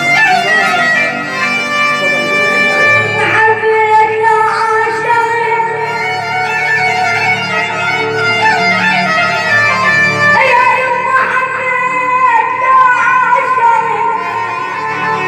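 Music from an Arabic song: a mainly instrumental passage of sustained, bending melodic lines, with a low bass coming in about three seconds in.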